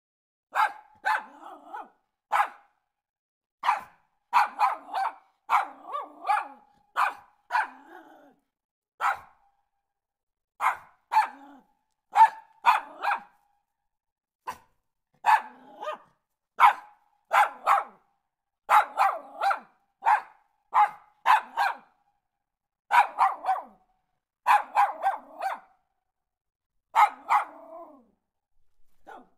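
Small dog barking in quick runs of two to four sharp barks, with short pauses between the runs.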